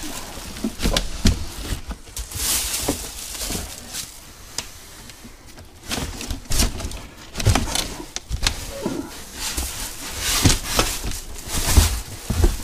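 Cardboard box and plastic wrap being handled while an outboard motor is worked out of its packaging: crinkling and rustling of the wrap, cardboard scraping, and scattered knocks and bumps.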